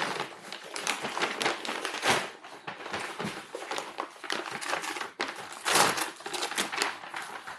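Packaging crinkling and rustling in irregular bursts of crackles as a parcel is unwrapped by hand, loudest about six seconds in.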